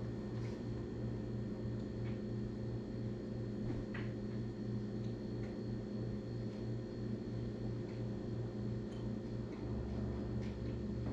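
Steady low mechanical hum with a few faint, scattered clicks and taps.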